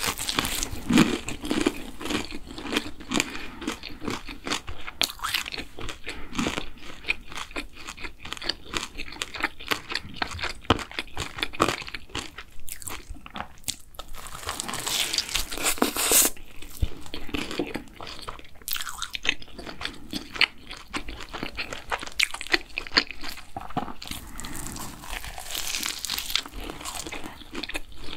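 Crunching and chewing close to the microphone as bites are taken from a fried savoury doughnut topped with potato, chicken and jalapeño: many irregular crisp crackles from the fried crust, with the chewing running on between bites.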